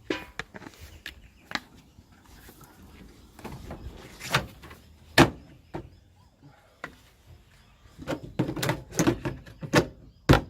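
Irregular knocks and clunks of parts being handled inside a car. There is a sharp single knock about five seconds in, a run of knocks from about eight seconds, and another sharp knock near the end.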